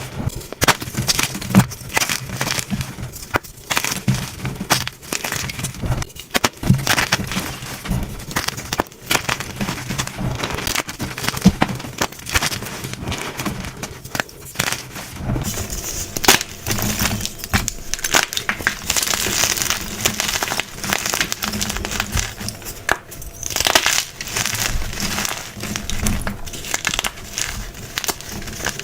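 Blocks of gym chalk being crushed and crumbled, a dense run of crisp crunches and crackles. From about halfway the crunching turns grainier and hissier, like soft powdery chalk breaking down.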